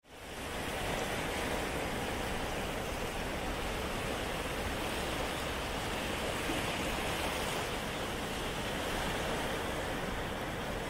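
Steady hiss of sea surf washing on a beach, fading in over the first second.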